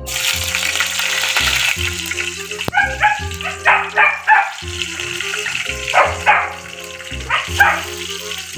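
Chopped garlic sizzling in hot cooking oil in an aluminium pot, the hiss starting as the garlic goes in and easing after about three seconds. Background music with a steady bass line runs throughout, and several short, sharp bark-like cries come in bursts, the loudest about four seconds in.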